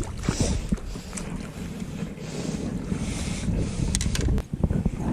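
Wind buffeting the microphone in a rumbling, gusty roar, with a few short sharp clicks.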